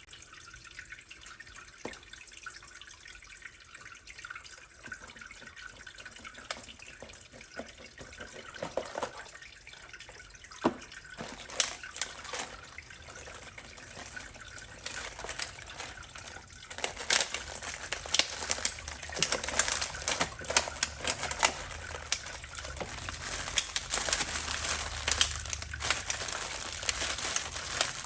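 Water sounds: a faint trickle at first, then scattered drips and splashes that grow into a busy, crackly splashing from about halfway through.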